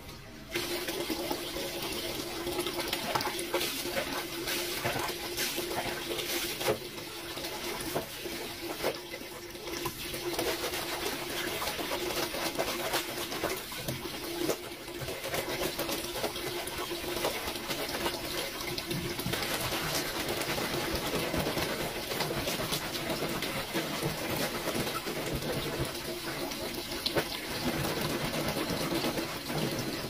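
Clothes being washed by hand in a concrete laundry sink: a soapy garment scrubbed with bar soap against the ridged washboard, with wet rubbing and slapping and splashing water.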